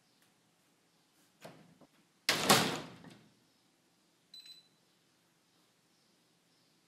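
A faint knock, then a loud sudden thud that dies away over most of a second, like a door being shut, then a small clink with a short ringing tone. Otherwise near silence.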